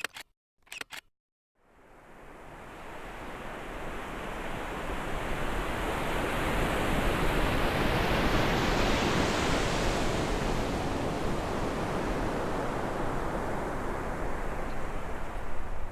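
A steady rushing noise that fades in over several seconds and then holds, after a few short clicks in the first second.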